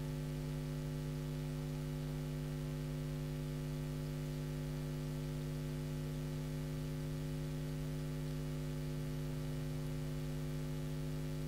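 Steady electrical mains hum in the sound system: a low, unchanging buzz with a stack of evenly spaced overtones.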